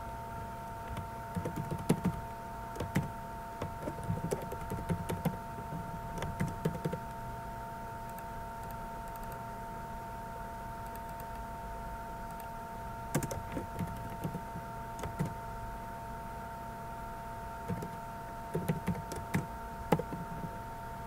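Computer keyboard typing and mouse clicks in three short spells, over a steady electrical hum with a faint high whine.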